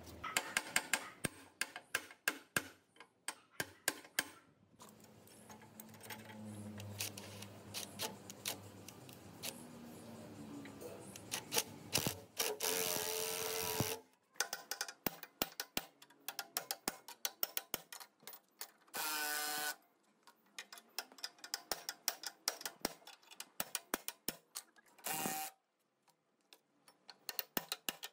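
Hand tools on a rusty cast-iron machine: a ratchet wrench clicking and metal clinks and knocks as the arbor nut is worked and a two-jaw gear puller is fitted to pull the bearing. A few short louder rushing bursts come between them.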